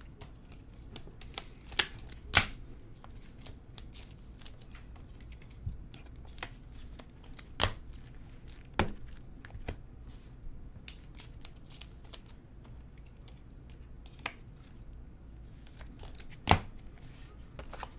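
Hands handling trading cards in hard clear plastic holders: scattered sharp clicks and taps of plastic against plastic and the table, with soft rustling in between, over a low steady room hum.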